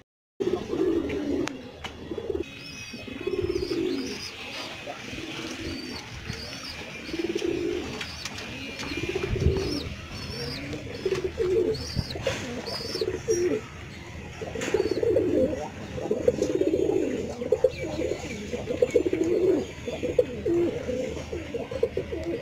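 A flock of domestic pigeons cooing, their low coos overlapping and repeating over and over.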